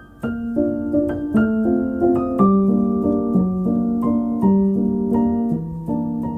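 Background piano music: a slow, gentle melody of single notes and chords, a new note about every half second.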